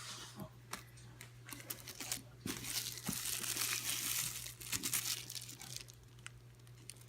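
Packaging crinkling and rustling as a handbag is handled and turned over, with a denser, louder stretch of crackling in the middle.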